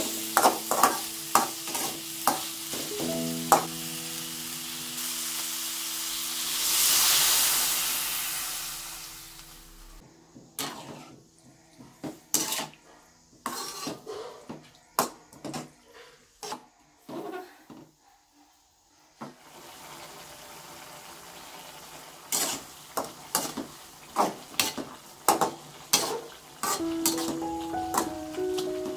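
Flat metal spatula scraping and knocking against an aluminium wok while stir-frying sliced bitter melon. About six seconds in, a loud hissing surge swells and fades as liquid goes into the hot pan. After that the vegetables simmer with a steady quieter sizzle under more spatula taps.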